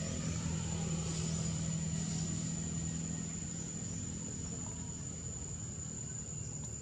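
A steady low engine hum, like a motor idling, that fades after about four seconds, under a constant high-pitched insect drone.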